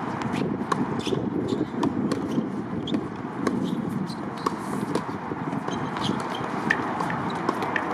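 Tennis court sounds: many irregular sharp knocks of tennis balls being struck and bouncing on the hard court, over a steady rush of background noise.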